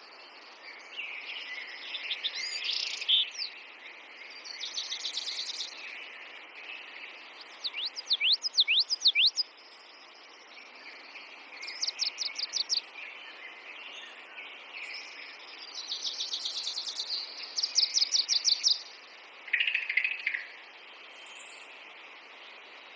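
Songbirds singing in a series of separate phrases: rapid runs of high chirps, and about 8 seconds in a quick string of sharp upward-sweeping whistles, over a steady background hiss.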